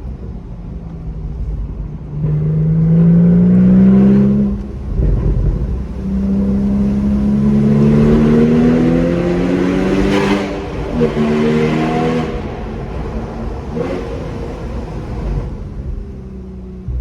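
Porsche Boxster S (981) 3.4-litre flat-six on its stock exhaust, without the optional sports exhaust, accelerating in several pulls: the engine note climbs in pitch through each pull and drops back between them, easing off near the end.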